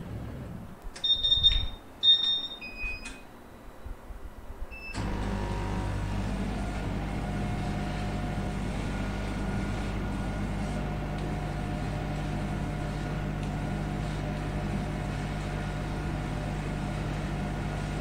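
A few loud electronic beeps, then about five seconds in a steady mechanical hum starts suddenly and runs on: a CO2 laser cutter working, cutting a coaster out of 3 mm plywood.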